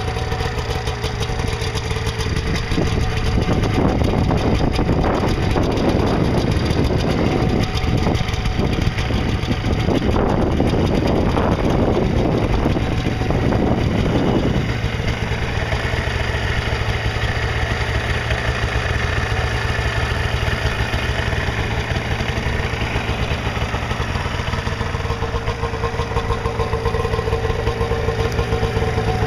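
1991 Arctic Cat El Tigre EXT 550 snowmobile's two-stroke engine running, revved in a series of throttle blips in the first half and then settling back to a steady idle.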